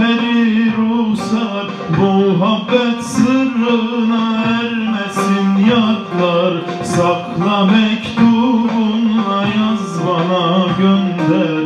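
Bağlama (Turkish long-necked lute) played with a man singing a Turkish folk song over it.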